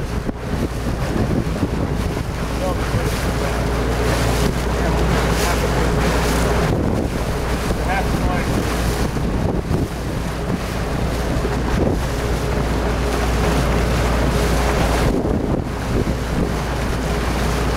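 Wind buffeting the microphone over the slap and splash of choppy water.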